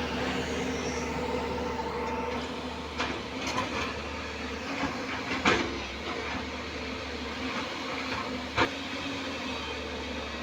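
JCB NXT 205 excavator's diesel engine running steadily, with a few sharp knocks from the working machine. The loudest knock comes about five and a half seconds in, and another near the end.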